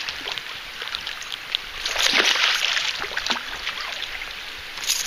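Water splashing and sloshing, with an irregular swell about two seconds in, as a hooked walleye thrashes at the surface while being landed.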